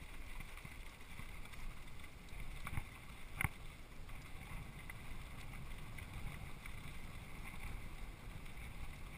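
Mountain bike rolling down a packed dirt-and-gravel trail: a steady low rumble of wind on the microphone and tyres on the ground, with two sharp rattles from the bike about three seconds in.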